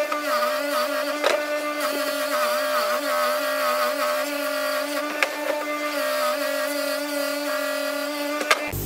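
Record Power bench grinder running with a copper ingot pressed against its wheel: a steady motor hum whose pitch dips and wavers as the metal is pushed onto the wheel, with a few sharp knocks. The sound cuts off abruptly near the end.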